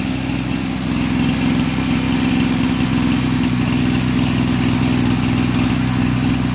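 The small engine of a motorized 30-litre sprayer running steadily at constant speed, getting a little louder about a second in.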